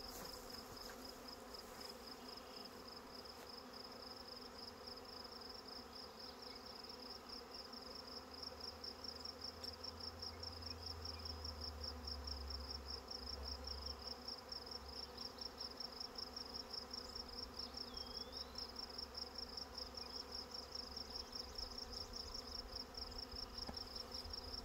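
Honeybee swarm buzzing: a steady hum of many bees, with a high, fast-pulsing trill running over it.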